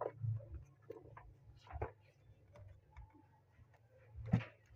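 Scattered clicks and taps of handling as a charger plug is brought to the opened HP laptop and connected, with a louder knock near the end, over a low steady hum.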